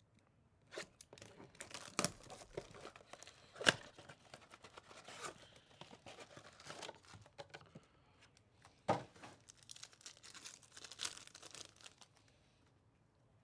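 A 2024 Topps Chrome baseball blaster box being opened and its foil card pack torn open and crinkled by hand: irregular tearing and crinkling with a few sharper, louder rips, stopping about twelve seconds in.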